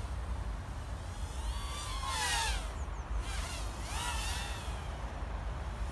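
BetaFPV HX100 micro quadcopter's brushless motors and 65 mm two-blade propellers buzzing in flight, the whine swooping down in pitch twice as the throttle changes. A steady low rumble runs underneath.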